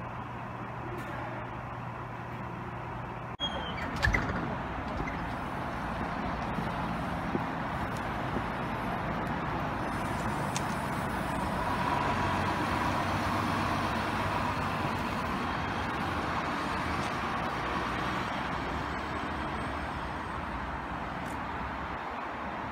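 City transit bus running as it drives past, its engine and road noise building to a peak about halfway through and then easing off. A short sharp knock about four seconds in.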